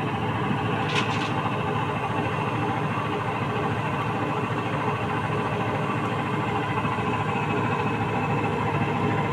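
Midea top-loading washing machine running with a steady mechanical hum, with a brief click about a second in.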